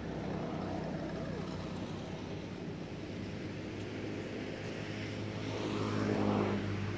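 Steady low hum of a motor engine running in the background, growing louder and rising in pitch about six seconds in as it comes closer, then easing off.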